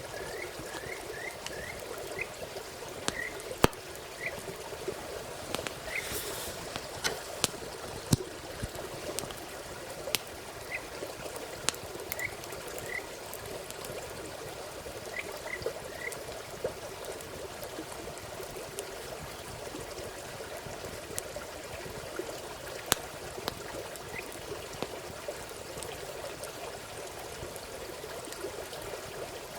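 Frogs calling in a steady, dense chorus, with a quick run of short rising chirps at the start and a few more scattered later, over the sharp pops and crackles of a wood campfire.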